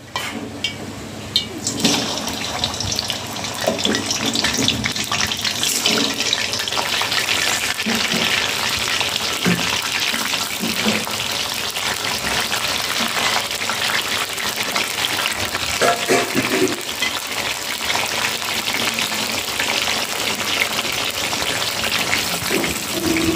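Chicken pieces deep-frying in hot coconut oil in a steel wok: a loud, steady sizzle that swells about two seconds in as the pieces go into the oil, with scattered pops and crackles.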